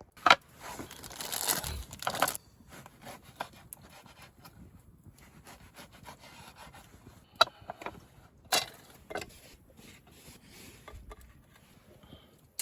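Handling noises: a sharp click, then about two seconds of rubbing and scraping, followed by scattered light clicks and two sharper knocks about a second apart near the middle.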